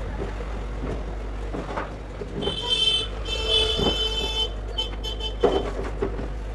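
A high, horn-like tone sounds twice in quick succession for about two seconds, over a steady low hum and background noise. A few knocks follow near the end.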